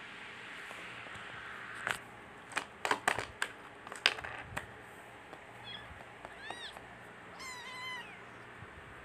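A cluster of sharp clicks and taps about two to four seconds in, then a kitten mewing: one high call about six and a half seconds in and a quick run of short high-pitched mews near the end.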